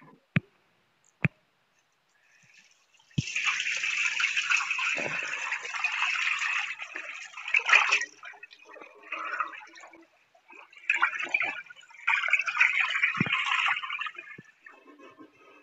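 Washing a steel cooking pot at a tap: a few sharp metallic clinks from the pot in the first seconds, then water splashing and scrubbing inside the pot, steady for several seconds and then in shorter spurts.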